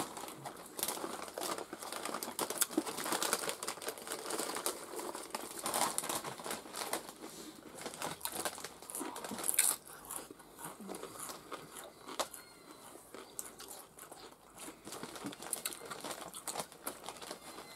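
People eating nacho chips and taco gratin: crunching and chewing with many small crackles, busiest in the first half, and one sharper crack about ten seconds in.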